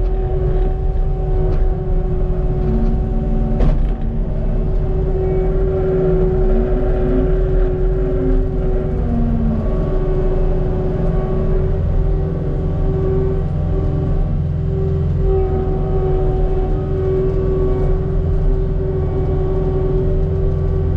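Cat 289D3 compact track loader's diesel engine running steadily under load, with a steady hydraulic whine, heard from inside the cab while the bucket pushes through brush and dirt. A sharp knock comes a few seconds in.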